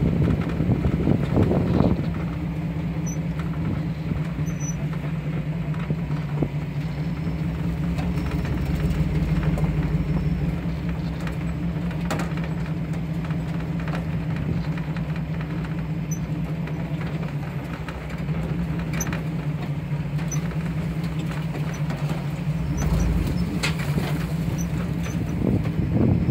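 A vehicle's engine running steadily while it drives off-road along a dirt track, with occasional light clicks and knocks.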